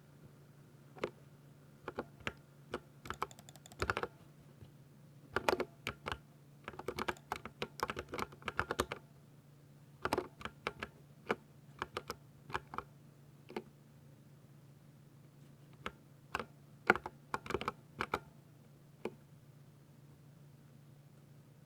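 Typing on a 60% mechanical keyboard with linear silver switches: keystrokes in irregular bursts with short pauses, including a quick run of rapid keypresses a few seconds in. A faint steady low hum sits underneath.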